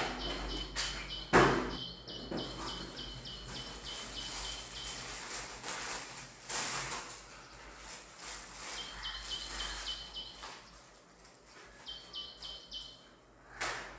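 A small bird chirping in fast runs of short, high notes that stop and start again, over the rustling and knocking of a cardboard box and its papers being handled; the loudest is a single knock about a second and a half in.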